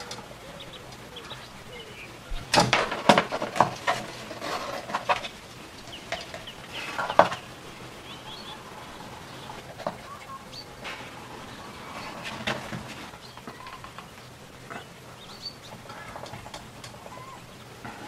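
Clicks and taps of hands handling a plastic syringe and a push-in tube fitting on a small metal compressor. A dense cluster comes about two and a half seconds in, a sharp one near seven seconds, then lighter scattered clicks.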